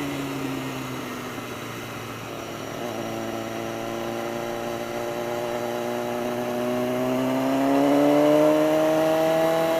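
BMW S1000RR's inline-four engine under way. Its pitch sags slightly over the first couple of seconds, then climbs steadily from about halfway through as the bike accelerates, and it is loudest near the end.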